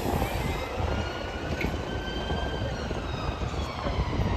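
City street ambience: a steady rumble of traffic with the voices of passers-by mixed in.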